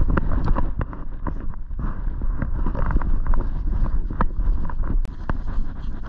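Rumbling wind and rubbing noise on a camera worn by a German hunting terrier, with many short crackles and rustles of dry leaf litter as the dog moves about.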